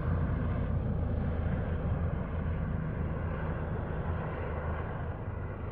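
Small airplane engine running with a steady low drone, easing slightly in level toward the end.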